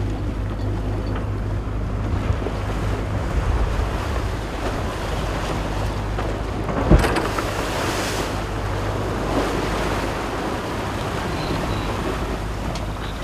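Wind buffeting the microphone over the steady rush of sea water along a sailing yacht's hull as it sails through chop, with a single sharp knock about halfway through.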